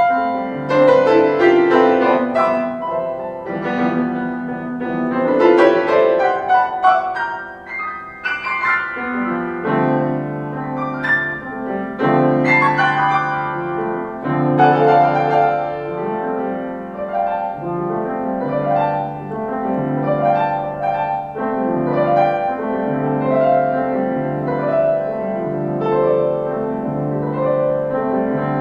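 Solo piano playing: quick, flowing runs and rising figures for the first several seconds, then settling into a steadily repeating pattern of low chords with a melody above.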